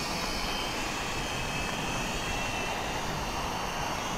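XK X300 quadcopter's motors and propellers running in flight, a steady buzz with a thin high whine.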